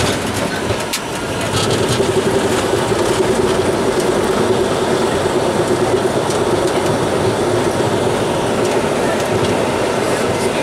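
Bombardier Global 6000 on its landing rollout, heard from the cockpit: a loud, dense rush of engine noise and rolling rumble. A sharp knock comes right at the start, the noise grows louder about a second and a half in, and it then holds steady with a low hum.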